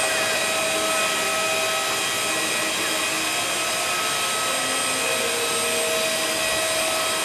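Parked jet airliner's turbine running: a steady rushing hiss with a constant high whine that holds at one pitch throughout.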